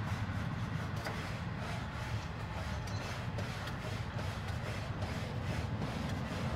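Scrubbing strokes on a barbecue grill grate, about two a second, over the steady low rumble of a passing train.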